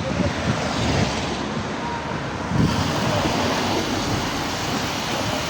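Street ambience: a steady wash of traffic noise with faint voices in the background, growing a little louder about two and a half seconds in.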